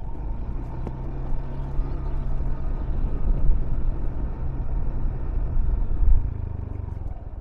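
Motor vehicle engine running, a low hum with a steady pitch that eases off a little near the end.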